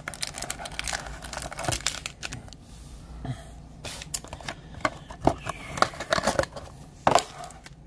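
A cardboard trading-card box is being opened and its foil-wrapped pack slid out: cardboard flaps tearing and scraping, with the foil wrapper crinkling. Irregular sharp crackles and snaps are heard, the loudest about five seconds in and again near seven seconds.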